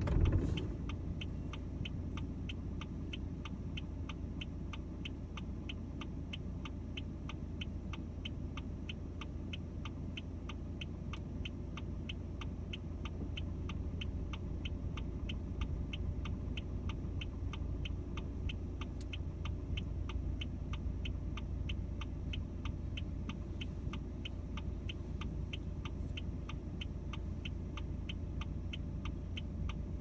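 Car's turn-signal flasher ticking steadily, about two to three clicks a second, over the low hum of the idling engine, heard inside the cabin.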